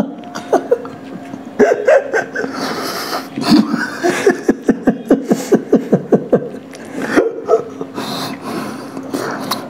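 A man laughing through a mouthful of cake: a quick run of short, pitched, breathy pulses, about five a second, in the middle stretch, among scattered shorter vocal sounds.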